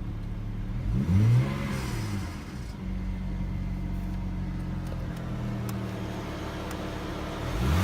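2009 BMW 335i xDrive's twin-turbo 3.0 L inline-six idling, revved once about a second in and falling back to idle, with the rattling noise that comes every time the gas is released. A second rev starts near the end.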